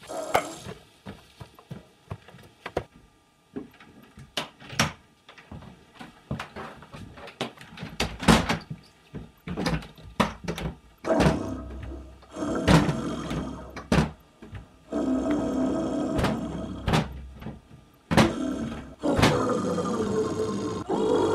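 Irregular knocks and thuds on a door, sparse at first and becoming louder and more frequent about a third of the way in. In the second half a droning musical tone runs underneath.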